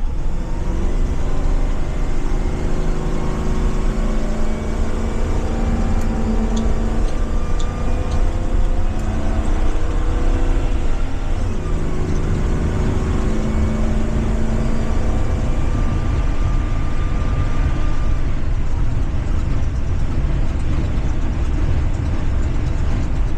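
School bus's Ford 7.3 gas V8 pulling hard under acceleration, its pitch climbing steadily, with the automatic transmission shifting up about halfway through and again later.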